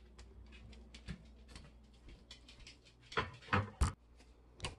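Light clicks and taps of things being handled, with four louder knocks in the second half.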